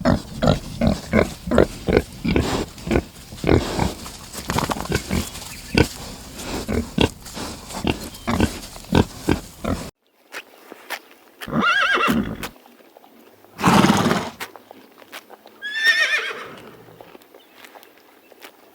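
Animal sounds: for about ten seconds a fast run of short grunting pulses, a few each second. Then, after a sudden break, three separate calls, the last one shaky and falling in pitch.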